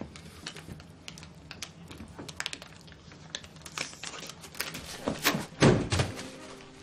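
A plastic water bottle crinkling and clicking as it is handled, in irregular small crackles, with one louder crackle about five and a half seconds in.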